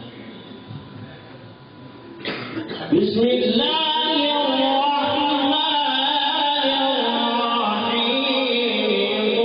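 Quran recitation: a male qari chanting in a drawn-out melodic style. After a quieter pause, a long held phrase with slowly bending pitch begins about three seconds in.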